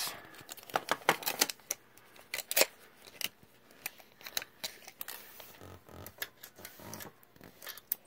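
Irregular small clicks and knocks, several close together at times, from a tape measure being handled and laid against a steel hinge and the aluminium window track.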